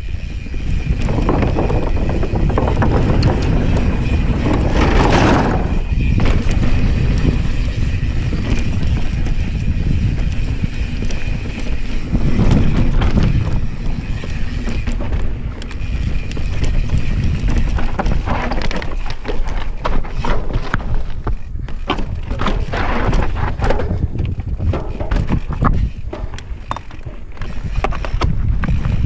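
Wind rumbling over the microphone and tyres rolling on dirt as a 2020 Specialized Enduro S-Works mountain bike descends a trail. In the second half, quick rattles and knocks come from the bike as it rides over rocks.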